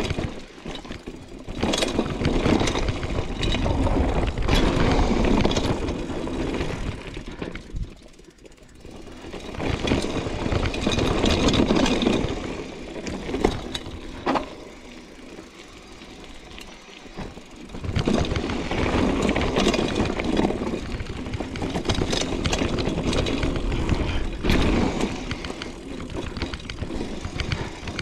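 Mountain bike riding down a dirt downhill trail: a rushing noise of tyres and air, with frequent clatters and rattles of the bike over rough ground. It swells and eases with speed, dropping off briefly about eight seconds in and again for a few seconds in the middle.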